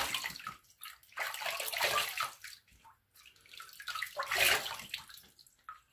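Water running and splashing at a sink in three bursts, each about a second long: rinsing during a wet shave.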